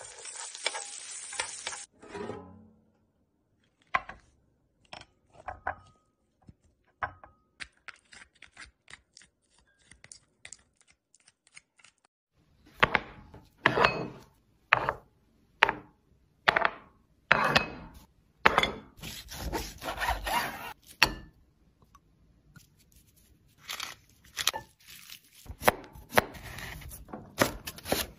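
About two seconds of sizzling hiss as diced vegetables hit a hot pan. Then a kitchen knife chops on a cutting board: scattered light knocks at first, then a run of loud, sharp chopping strokes through herbs and vegetables in the second half.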